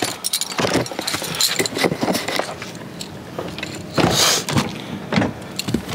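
Camera handling noise and clothing rustle, with clicks, knocks and light metallic jingling, and a louder rustle about four seconds in.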